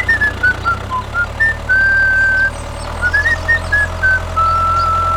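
Steady low motor hum, typical of a mini tractor running, with a high-pitched tune of quick stepping notes and two longer held notes playing over it.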